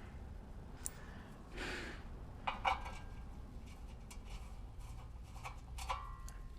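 Light clicks and small metallic clinks from the undertray kit's loose hardware (rivet-nut bolts) being handled, two of the clinks ringing briefly.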